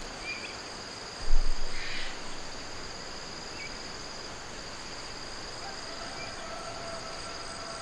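Insects trilling steadily at a high pitch, with a few faint short chirps and a brief thump about a second in.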